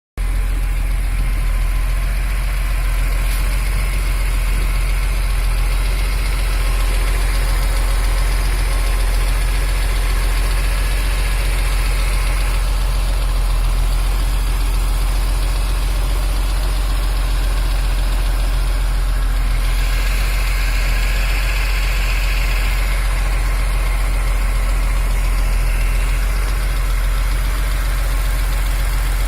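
BMW S54 inline-six engine of an E46 M3 idling steadily with a small metallic tick or knock running through it, the fault the owner is trying to trace.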